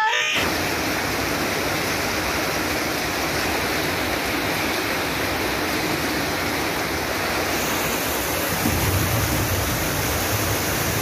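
Fast-flowing floodwater rushing over a road, a steady even rush of water. A deeper low rumble joins it about eight and a half seconds in.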